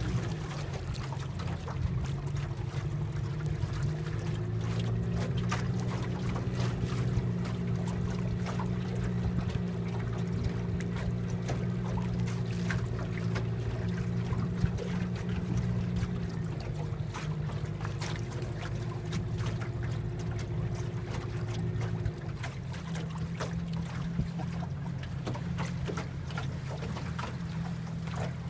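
Boat motor running steadily at low speed, a continuous hum with water splashing and lapping at the hull. The hum changes about 16 seconds in and turns quieter about 22 seconds in.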